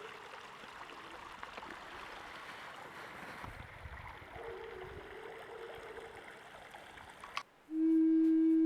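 Steady rushing of running water, like a small stream. Near the end it cuts off with a click and a loud, steady held tone begins.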